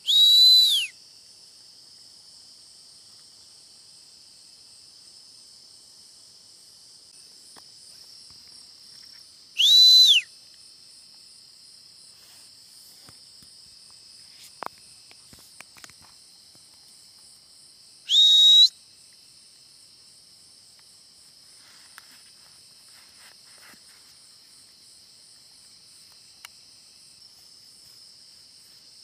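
Three loud, sharp whistles about nine seconds apart, each a brief rise and fall in pitch, over a steady high chorus of night insects.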